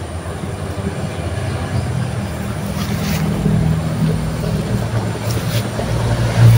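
A motor engine running, a low hum that shifts in pitch and grows a little louder near the end, with a few faint clicks.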